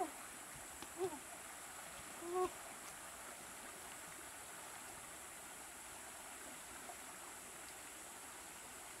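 River water running steadily over shallows, with three short pitched calls in the first two and a half seconds, the last one held a little longer and the loudest.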